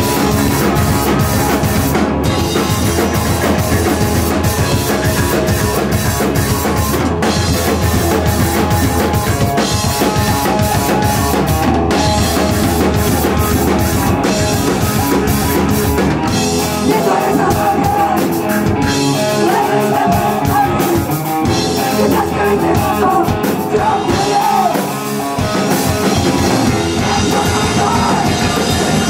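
Live crust punk band playing loud: pounding drum kit, distorted guitar and vocals into a microphone, heard in a reverberant brick cellar.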